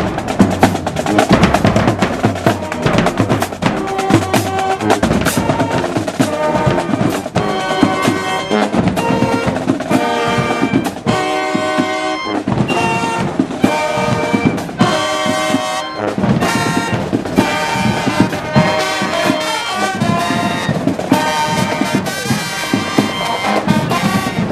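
Marching band playing: a brass section over continuous drum-line beats, with brass chords held through the middle stretch.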